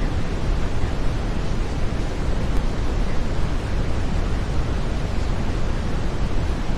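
Steady brown noise: an even, deep rushing hiss with most of its energy in the low end.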